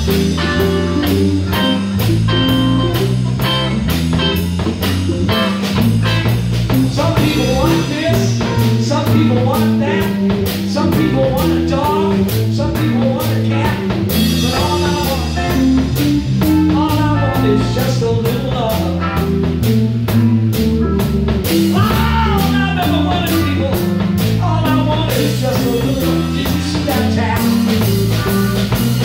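Live blues band jamming on a swing beat: Fender electric bass, drum kit, electric guitars and Hammond organ, with a lead line of bent notes over the rhythm in the second half.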